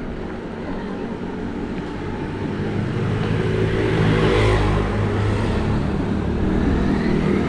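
Bicycle tyres rolling on the road with a steady rush of wind and road noise. The sound swells louder from about the middle and peaks there, as a motor vehicle goes by.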